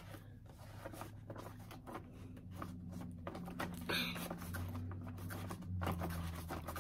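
Paper rustling and scraping as a greeting card is pushed back into its envelope, with a brief louder scrape about four seconds in, over a low steady hum.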